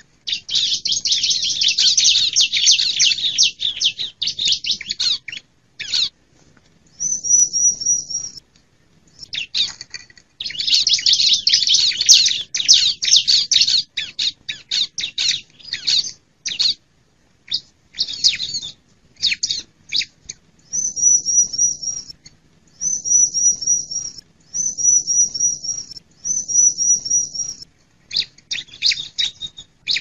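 Ciblek (prinia) song played as a bird-luring call: long bouts of rapid, high chattering trills alternate with short, repeated high whistled phrases, with brief pauses between them.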